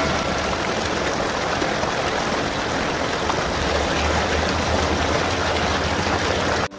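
Steady rush of flowing water, with a low engine hum coming and going underneath. It cuts off abruptly near the end.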